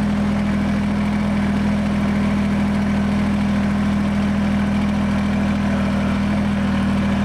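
Kubota compact tractor's diesel engine running at a steady, unchanging pitch while the tractor drives along.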